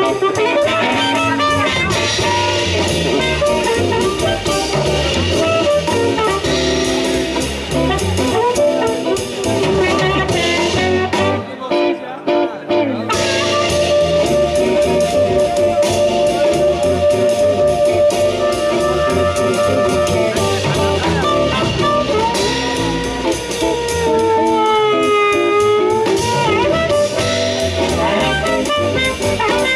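Live blues band playing an instrumental: harmonica blown into a microphone leads over electric guitar, upright bass and drums. About twelve seconds in the band stops for a moment, then the harmonica holds a long wavering note and later bends a note down and back up.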